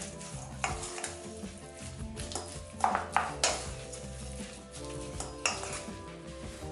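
Wooden spatula stirring chunks of raw pork and spice rub in a stainless steel bowl, knocking and scraping against the metal several times, with background music underneath.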